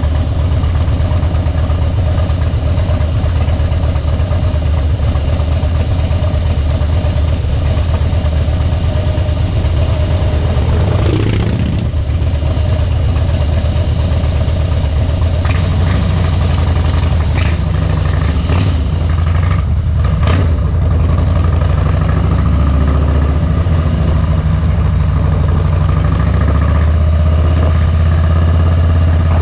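Harley-Davidson Softail Deluxe V-twin running through Vance & Hines Straight Shots slip-on mufflers, a steady low exhaust note. A few short clicks and knocks come through in the middle.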